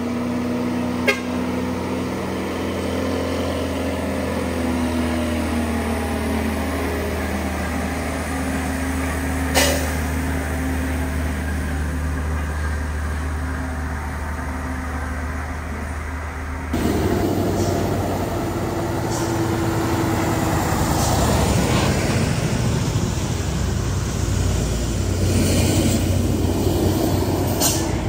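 A truck's diesel engine running steadily, with two sharp clicks. After a cut, the louder sound of road traffic with a cargo truck passing.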